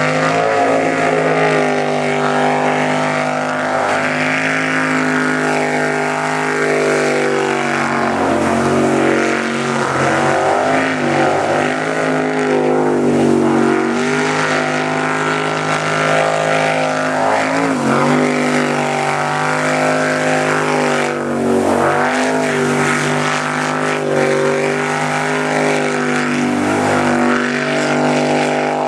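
V8 jet sprint boat engine running hard, its revs rising and falling again and again as the boat is throttled through the turns of the course.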